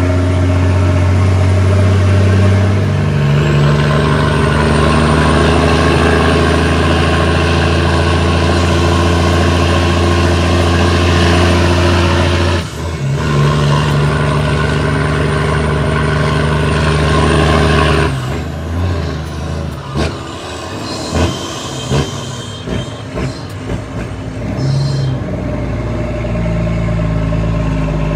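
Cummins ISX straight-six diesel in an International ProStar truck pulling steadily under load. A gear change breaks the pull briefly about twelve seconds in. About eighteen seconds in the engine falls away to a quieter run with scattered knocks and clicks, then pulls strongly again near the end.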